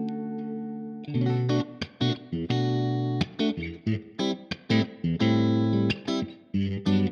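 Squier Affinity Series Stratocaster electric guitar played through an amp: a held chord rings and fades for about a second, then a choppy riff of short, sharply struck chords and notes with brief stops between them.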